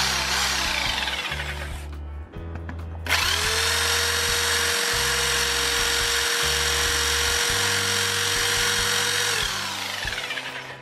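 Parkside PSBM 750 B3 750-watt corded hammer drill. A short burst spins down at the start. About three seconds in the motor starts again, rises to a steady pitch while the bit drills into a stone block, and winds down near the end. Background music with a bass line plays underneath.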